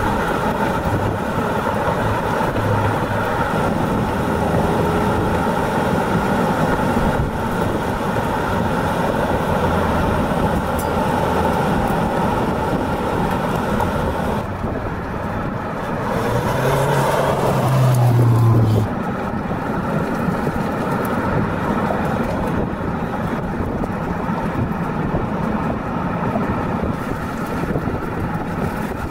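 BMW XM SUV on the move: a steady drone of engine and tyre noise. From about 16 s to 19 s it grows louder with a rising engine note as it accelerates, then cuts off abruptly.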